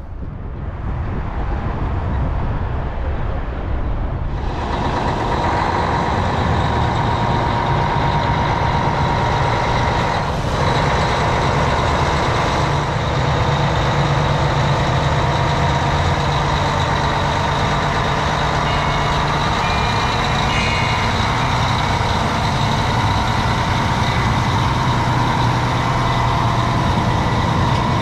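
A heavy engine running steadily, a low drone with a constant whine over it; it comes up sharply about four seconds in and then holds.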